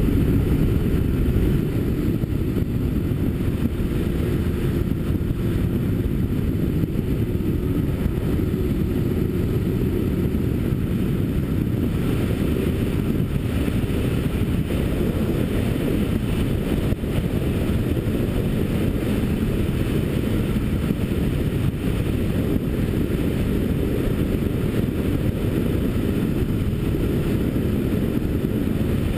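Yamaha sport motorcycle riding at road speed, heard from the bike itself: a steady engine note mixed with heavy wind and road noise.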